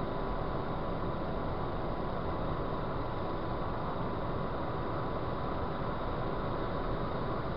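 Steady road and engine noise of a car cruising at motorway speed, heard from inside the cabin, with a thin, steady high whine running through it.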